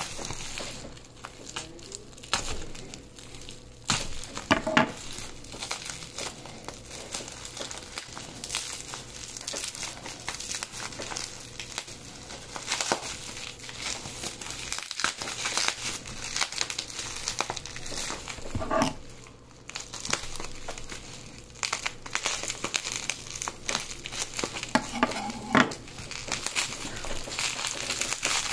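Plastic packaging and bubble wrap crinkling and rustling as hands work it open, with many small irregular crackles and a few louder handling bursts.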